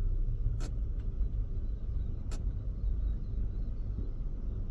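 A van's engine running with a steady low rumble, heard from inside the cabin, as the van pulls slowly forward. Two sharp clicks sound, one under a second in and another about two seconds later.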